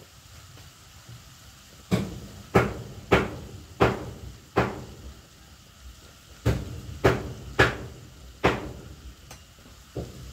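A run of sharp knocks, about nine in two groups of quick strokes roughly two-thirds of a second apart, with a pause in the middle, over a low steady background.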